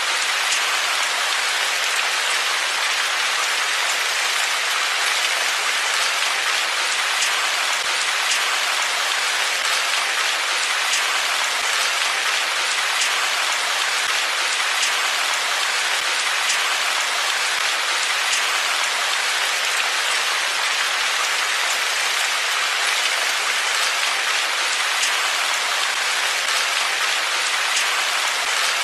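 Steady heavy rain: a dense, even hiss of falling water with scattered sharper drop taps through it.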